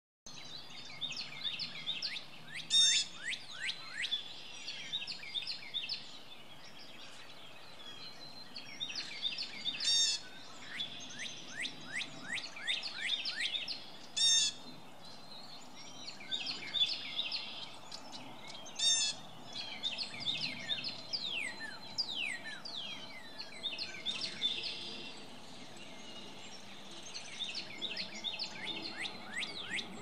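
Northern mockingbird singing a long run of mimicked phrases, including imitations of northern cardinal and blue jay. Quick series of downslurred whistled notes, broken every four to five seconds by a louder, harsher call.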